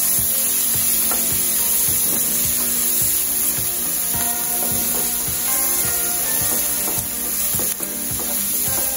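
Chopped onion and crisped pork skin sizzling steadily in a hot nonstick frying pan while a wooden spatula stirs and scrapes them around, with background music underneath.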